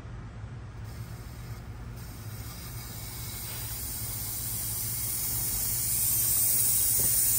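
Compressed air hissing and growing steadily louder as the supply valve is opened to pressurize the turbo intake for a boost leak test. The air is escaping around the turbo inlet clamp.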